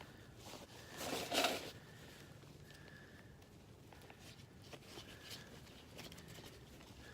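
Rustling of a backpack and gear being handled, with one louder rustle about a second in and faint small rustles and clicks after.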